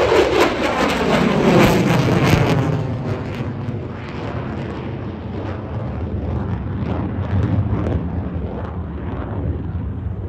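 F-35 fighter's single F135 jet engine at high power as the jet climbs away: harsh crackling jet noise with a falling pitch right at the start, easing after about three seconds into a steadier, lower rumble.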